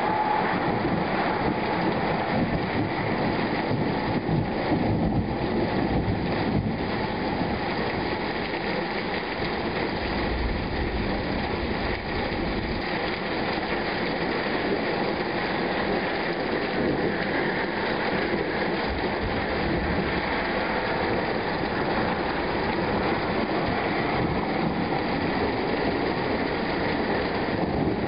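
Heavy rain falling steadily during a thunderstorm, a continuous even hiss.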